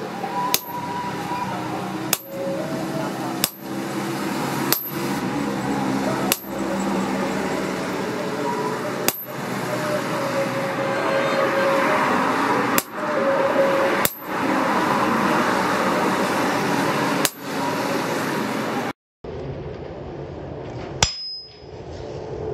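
Steady rushing of a blacksmith's forge fire under its air blast, with a low hum, while the steel bar heats. It is broken about every one to three seconds by a sharp metallic hammer strike with a brief high ring.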